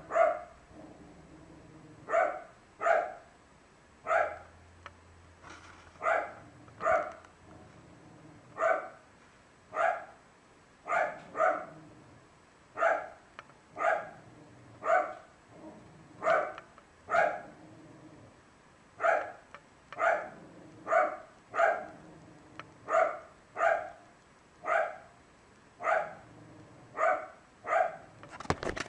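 A dog barking over and over in short single barks, about one a second, now and then two in quick succession.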